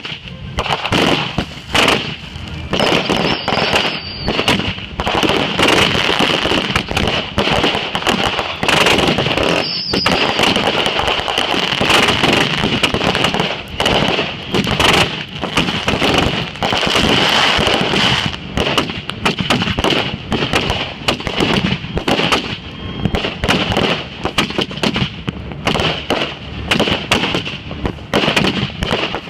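Consumer fireworks going off in a rapid, continuous barrage of bangs and crackling, with two brief high whistles about three and ten seconds in.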